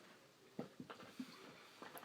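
Near silence: room tone with a few faint, short taps.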